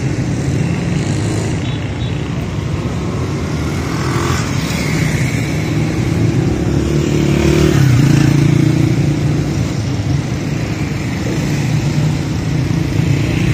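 Road traffic: motorcycles and small pickup trucks running past, a continuous engine hum that swells louder about eight seconds in.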